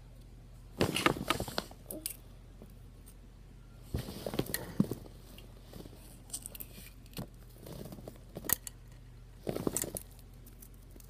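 Handling noise in several short bursts: a plastic toy container clicking and rattling as it is handled, and clothing brushing against the phone's microphone.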